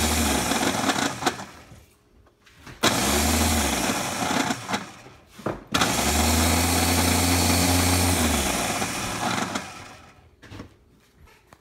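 Ninja blender's motor pod running in three pulses as it is pressed down: a short first run, then two longer ones, the last about three and a half seconds. Each spins up, runs steadily with a low hum and stops. This is a test run of the repaired unit.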